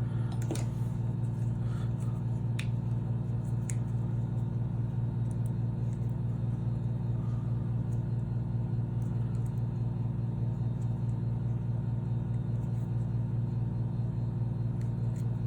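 A steady low droning hum of running machinery, unchanging in level, with a few faint clicks near the start.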